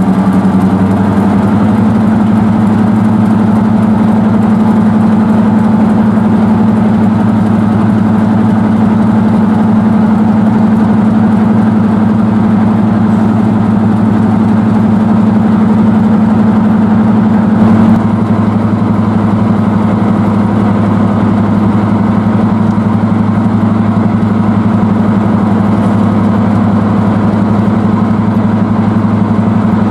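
Class 31 diesel locomotive's English Electric V12 engine running steadily, still cold from its first start of the day. Its note steps up slightly about a second in and drops back about two-thirds of the way through.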